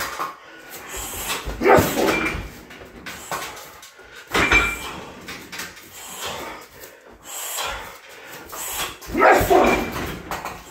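Heavy punching bag struck hard three times, each thud joined by a short, loud shout or grunt, about two seconds in, about four and a half seconds in, and again near the end.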